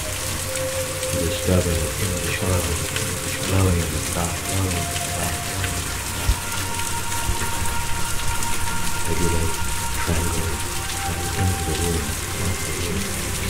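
Steady rain ambience, an even patter of falling rain, with a few soft held tones sounding faintly over it.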